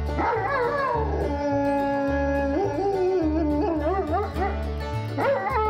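A Rottweiler howling in long, wavering calls, over background music with a steady low beat.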